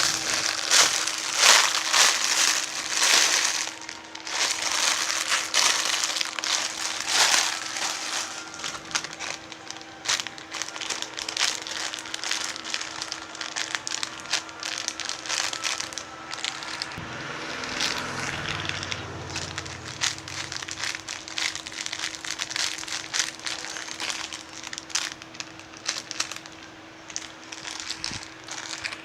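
Crinkling and crackling of plastic being handled close to the microphone, in a run of bursts that is loudest in the first few seconds and then continues more softly.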